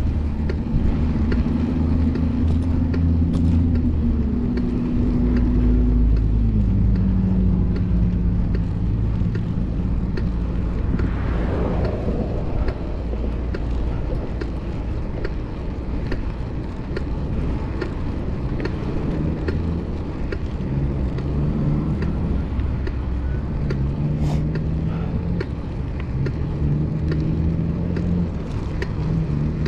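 Motor vehicle engine running on a road amid traffic, its low hum holding and then changing pitch every few seconds, with a brief swell of passing-traffic noise partway through.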